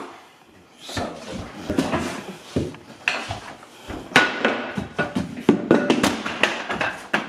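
Wooden dining chair being swung, slammed and banged against the floor: a rapid, irregular run of hard wooden knocks and clattering that starts about a second in.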